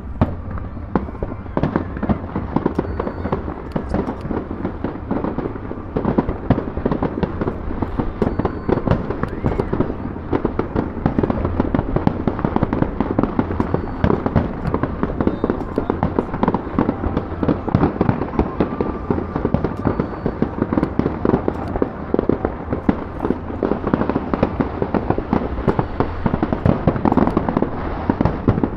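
A professional fireworks display going off: a dense, continuous barrage of overlapping bangs, pops and crackles, with no let-up.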